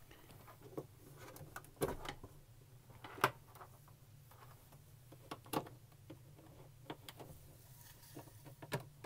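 Faint scattered clicks and knocks of a monitor and cable being handled while an HDMI plug is pushed into the back of the monitor, over a low steady hum.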